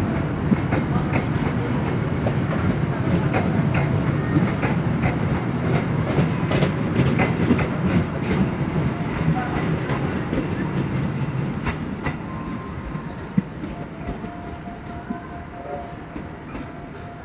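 Passenger train coaches rolling past on the rails, the wheels clicking over rail joints. The sound fades steadily as the end of the train draws away.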